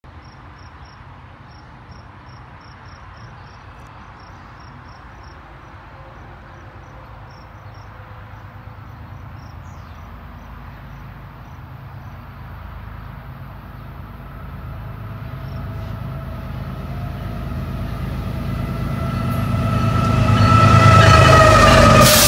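Approaching BNSF freight train led by GE diesel locomotives, an ES44C4 and a Dash 9-44CW: a low rumble grows steadily louder as the engines draw near and come alongside, with several steady pitched tones joining in about two seconds before the end.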